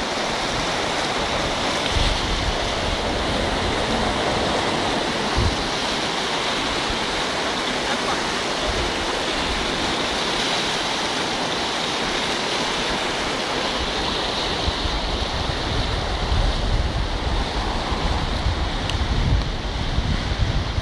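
Steady rushing of a flood-swollen river pouring through a weir. In the last several seconds, gusty low buffeting of wind on the microphone joins it.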